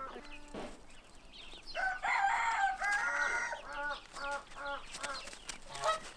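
Chickens clucking in a steady run of short calls, about four a second, with a rooster crowing once, louder and longer, about two seconds in.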